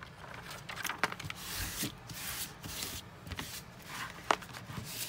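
Clear plastic release film on a diamond painting canvas rustling and crinkling as it is handled and pressed flat by hand, with a few sharp clicks among the rustles.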